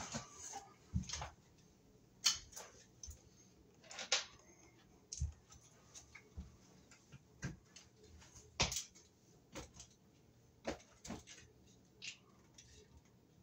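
Irregular clicks and light knocks of small fan parts and wiring being handled, roughly one a second.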